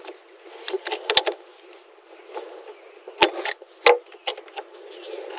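Tongue-and-groove pliers gripping and working a radiator hose clamp: a run of sharp clicks and scrapes as the jaws bite and slip on the clamp. The loudest clicks come about a second in and around three and four seconds in.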